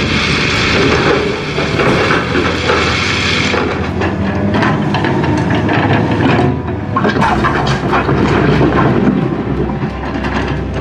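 Komatsu hydraulic excavator running steadily while its bucket digs and scrapes through a pile of crushed stone, with many short knocks and clatters of rock from about four seconds in.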